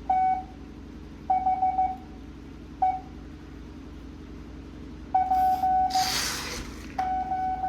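Morse code (CW) practice audio at 7.5 words a minute: a single steady tone keyed on and off in dits and dahs, with characters separated by pauses of a second or more. A short burst of hiss comes about six seconds in.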